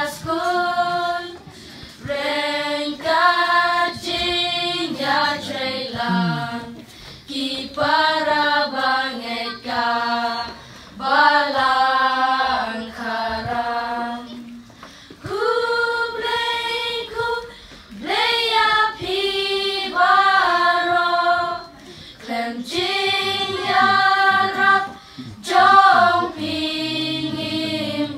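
A group of children singing a song together, in phrases of held notes with short breaks between them.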